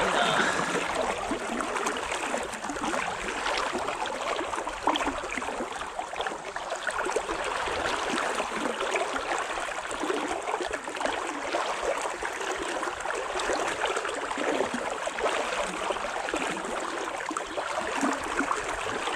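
River water rushing steadily around an angler wading in the current.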